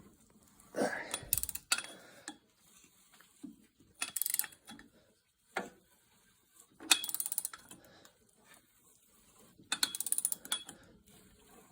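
Ratchet wrench clicking in about four short runs of quick clicks with pauses between, as a seized tractor engine is tried by hand to see whether it will turn over.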